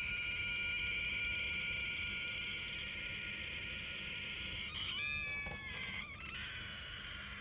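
A bottle on a counter giving off a steady, high-pitched squealing whistle made of several held tones. About five seconds in the pitch wavers and steps for a moment, then the steady squeal settles back.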